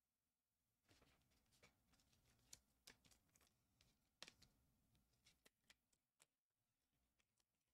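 Very faint handling of trading cards: scattered soft clicks and rustles as the cards are flipped through and set down, with one sharper click about four seconds in.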